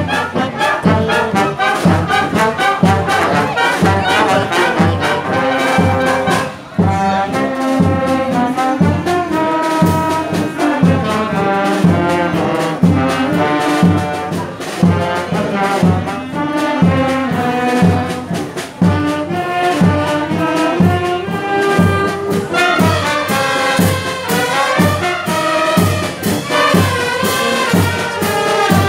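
Brass band playing a dobrado, a Brazilian street march: trumpets and trombones carry the melody over a steady march beat of about two strokes a second.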